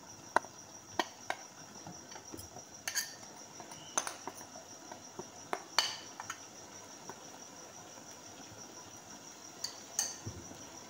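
Metal spoon scraping spice masala off a plate into a pot. It makes scattered light clinks and taps, mostly in the first six seconds, with one more near the end. A faint steady high whine runs underneath.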